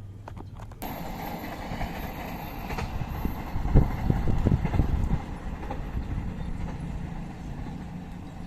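Small RC car running over rough ground: a rattling electric motor and wheels, starting abruptly about a second in, with a cluster of heavy knocks and thumps around four to five seconds in.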